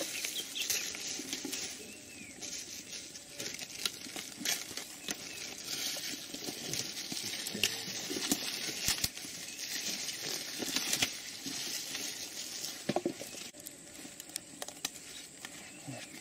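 Crackling and rustling of dry leaf litter and undergrowth as people shift and move around, with many scattered sharp clicks over a steady high hiss.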